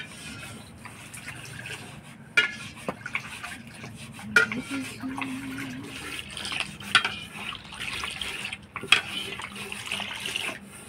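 Liquid sloshing in a metal cooking pot as milk is being heated, with a few sharp clinks of metal utensils.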